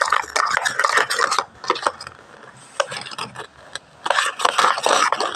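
A spoon stirring thick dosa batter mixed with salt in a cup, making a fast scraping and clicking against the sides. It breaks off about a second and a half in, leaving a few scattered taps, and starts again near the end.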